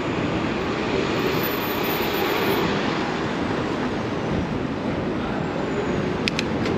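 Steady rushing noise of riding a bicycle through city traffic: wind on the microphone mixed with road and traffic noise. Two quick clicks come near the end.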